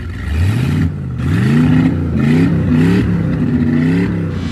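An engine revving up and down several times in quick succession, its pitch rising and falling with each rev.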